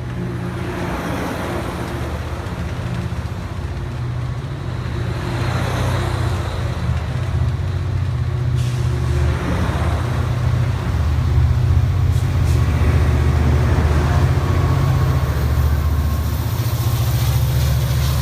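Bilevel passenger train departing past the platform: a steady rumble of wheels on rail, with rushing noise that swells every few seconds as each car goes by, over a low diesel locomotive hum. The hum gets louder in the second half as the diesel locomotive at the rear of the train comes by.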